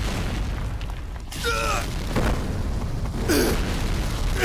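Anime battle sound effects: a steady low rumble with noisy rushing swishes, and two short falling cries from a voice, about a second and a half in and again near three seconds.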